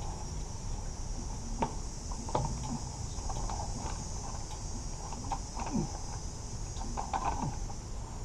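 Scattered light knocks and clanks of a steel fuel-tank cage being shifted and worked into place by hand, over a steady high hiss in the background.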